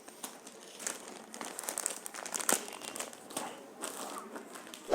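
Packaging of a small parcel crinkling and crackling irregularly as it is torn open by hand, ending in one sharper snap.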